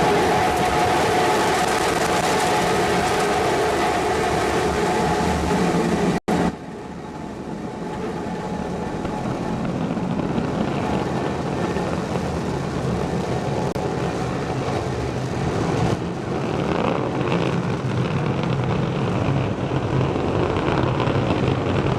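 Falcon 9 first-stage engines rumbling loudly as the rocket climbs, cutting off abruptly about six seconds in. Then a quieter, steady background noise that grows slightly louder.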